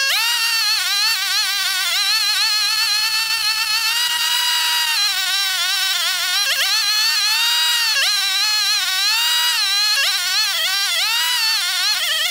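Maruyama MBS420RS 43cc two-stroke engine brush cutter running at high speed, cutting grass with a high-pitched whine. The engine note dips briefly and climbs back several times, more often in the second half.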